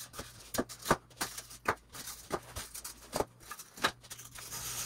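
Woodland Scenics white foam incline risers being handled and set down on the layout board: an irregular run of light taps and clicks.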